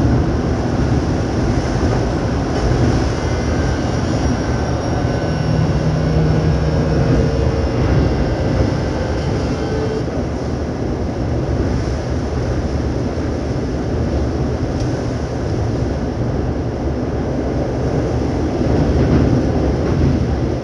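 Keio 8000 series electric train running, heard from inside the car directly above its VVVF inverter. Steady rolling noise of wheels and traction motors, with inverter and motor whine tones that hold for several seconds and stop about halfway through.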